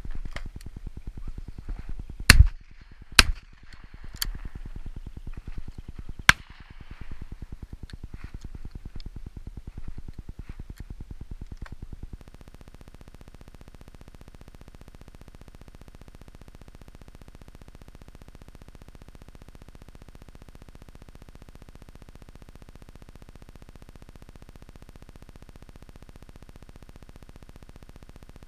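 Shotgun shots over wind rumbling on the microphone. About two seconds in there are two loud shots under a second apart, a right-and-left from a 20-bore over-and-under, followed by single shots at about four and six seconds. About twelve seconds in the sound switches to a steady electronic hum and hiss.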